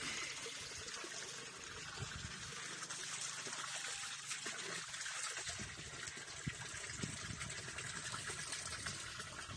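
Water trickling and lapping against the hull of a small boat moving through shallow water, a steady light wash.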